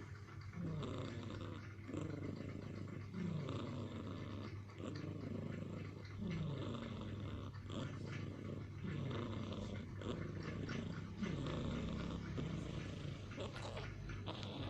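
Domestic cat snoring in deep sleep, one snore roughly every second and a quarter, each falling in pitch.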